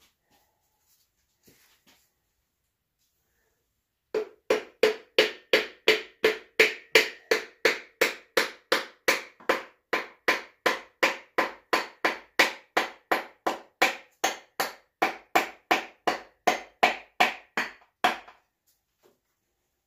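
A long, even run of sharp metallic clicks, about three a second, from a hand tool worked at the crankshaft main caps of a small-block Chevy 350. The clicks start about four seconds in and stop a couple of seconds before the end.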